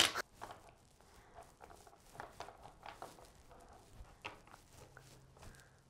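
A dog moving about close by on a wooden floor, its claws and feet making light, irregular ticks and pats, after one sharper knock right at the start.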